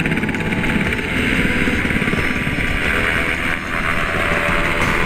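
UH-60 Black Hawk helicopter lifting off, its main rotor chopping rapidly and steadily.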